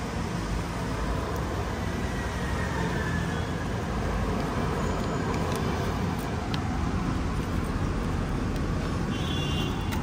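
Steady street background noise: a continuous traffic rumble with no distinct events.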